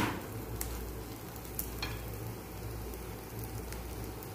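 Egg-brushed paratha sizzling steadily in oil in a frying pan over a gas flame that has just been turned up. A sharp knock sounds at the very start.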